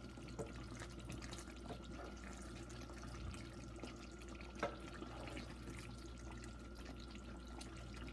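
A wooden spatula stirs chunks of eggplant through simmering tomato sauce in a pan, making soft wet sloshing with scattered light ticks. One sharper knock comes about four and a half seconds in, over a faint steady hum.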